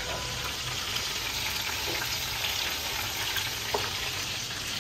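Hot oil sizzling steadily as potato-wrapped chicken pieces fry in a pan.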